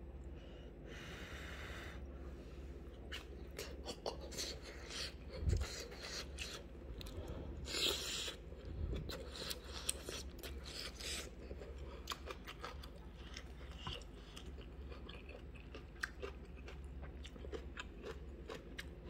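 A person chewing mouthfuls of rice and kimchi stew close to the microphone, with many short mouth clicks and smacks throughout.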